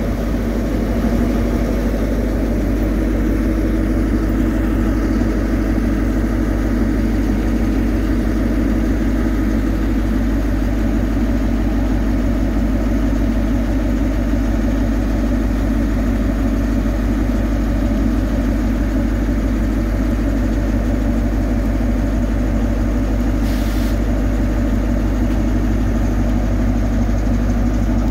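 Class 43 HST power car's MTU V16 diesel engine idling steadily while the train stands at the platform.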